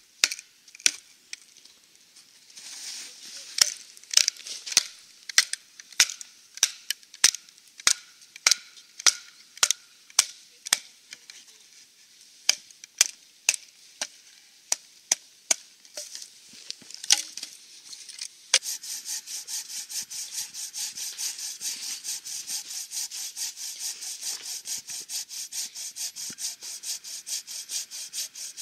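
A run of sharp wooden knocks like chopping, just under two a second. About two-thirds in, a homemade bow saw starts cutting wood in fast, even rasping strokes. The saw is a green-wood branch frame holding a blade meant for dry wood.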